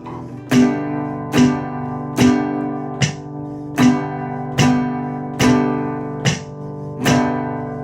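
Acoustic guitar strumming a G major chord in a short-short-long rhythm, with a stroke about every second and each one left to ring, while a kick drum keeps a steady four-beat pulse.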